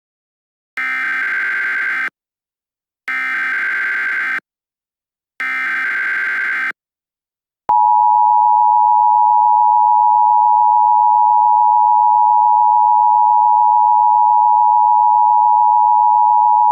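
Emergency Alert System SAME header: three short, harsh, buzzing data bursts about a second apart. About eight seconds in, the steady two-tone EAS attention signal begins and holds. It announces a tornado watch alert.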